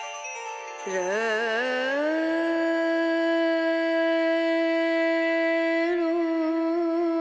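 Indian classical-style background music: a single melodic line wavers through quick ornamental turns about a second in, then holds one long steady note for about five seconds.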